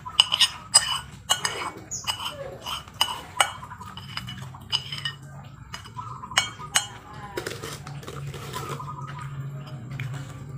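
Cutlery clinking and scraping against dishes: a quick run of sharp metallic clinks in the first few seconds, thinning out later, over a low steady hum.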